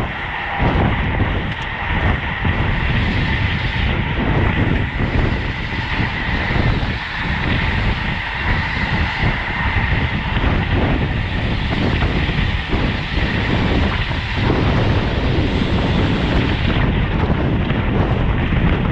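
Wind rushing over the microphone of a road bicycle at racing speed, with steady tyre and road noise underneath.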